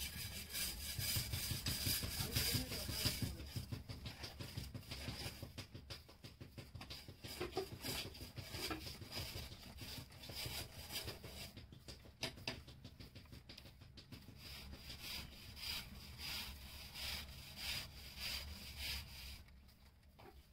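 Wet clay rubbing under the hands on a spinning potter's wheel: a fast, rhythmic rubbing that dies down near the end.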